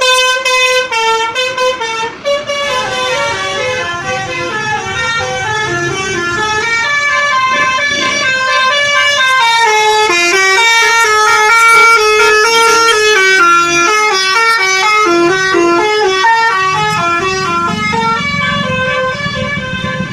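Tour bus's telolet 'basuri' melodic horn playing a long stepping tune of horn notes, choppy at first and then continuous. The bus engine's low rumble grows stronger near the end.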